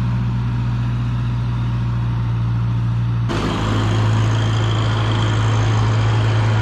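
Garden tractor engine running steadily at a low, even speed. About three seconds in the sound changes abruptly to a similar steady engine hum with a faint high whine over it.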